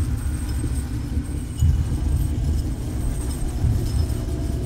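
Deep, rumbling low drone of a dark horror ambience soundscape, swelling briefly about one and a half seconds in, with faint high pings scattered above it.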